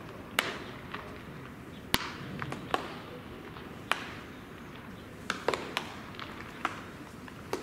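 Baseballs popping into leather gloves during catch practice: about a dozen sharp smacks at irregular intervals, some loud and close, others fainter from farther off, with a cluster a little past the middle.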